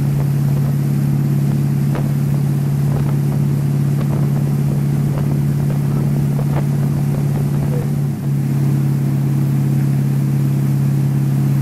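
Tow boat's engine running steadily at towing speed, its note holding one pitch, with a brief dip about eight seconds in.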